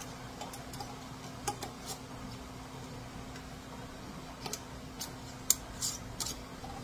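Metal screw bands being turned finger-tight onto glass canning jars: scattered light clicks and scrapes of metal against glass, the sharpest about five and a half seconds in, over a steady low hum.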